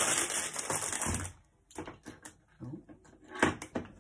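Plastic packaging crinkling as it is handled, stopping about a second in, followed by a few light clicks and knocks of small items being handled and put down on a kitchen counter.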